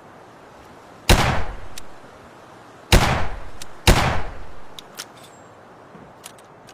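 Chiappa Rhino short-barrelled revolver firing three shots, the second about two seconds after the first and the third a second later, each with a long echoing tail. A few light clicks follow near the end.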